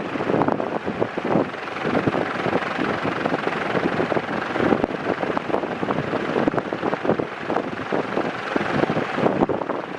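Jinling FC-30X5 ceiling fan with five metal blades running at high speed, its airflow buffeting the microphone as a loud, unsteady whoosh.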